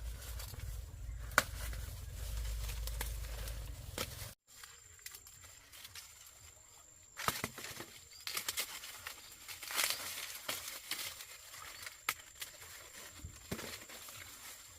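Intermittent rustling and crackling with sharp little clicks. For the first four seconds a low rumble runs under it, then cuts off abruptly.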